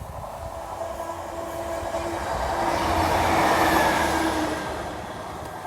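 Class 150 Sprinter diesel multiple unit passing, growing louder to a peak about three to four seconds in and then fading, with a steady engine hum and a few held tones over the rush of the wheels.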